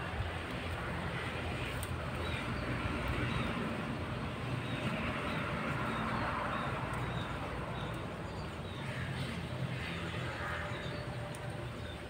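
Distant engine rumble that slowly swells to its loudest in the middle and then fades.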